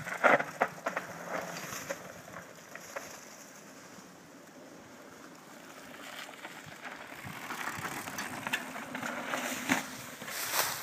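Bicycle rolling over a dry, leaf-covered dirt trail: tyre crunch with scattered rattles and clicks. It is busiest in the first second and again near the end, quieter in between.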